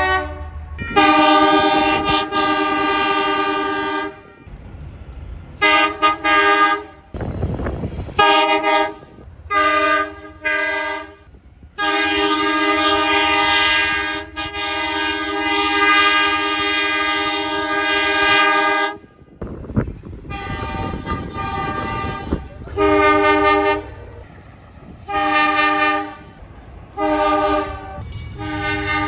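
A locomotive's multi-note chime signal sounding a series of blasts: one of about three seconds, a run of short toots, one long blast of about seven seconds, then four short toots near the end.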